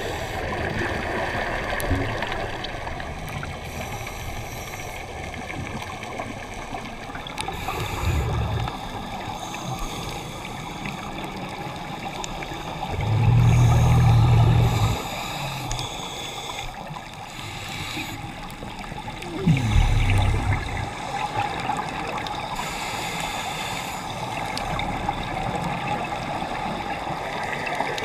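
Underwater ambience heard through a camera housing: a steady hiss of water, broken three times by a low rumble of a scuba diver's exhaled regulator bubbles, about every five or six seconds.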